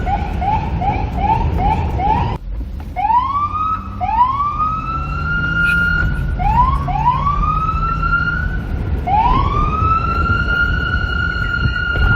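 Police car siren: a rapid run of short rising chirps, about three a second, then an abrupt cut, then a series of slower whoops that each climb and level off into a steady high tone, the last one held. A low vehicle rumble runs underneath.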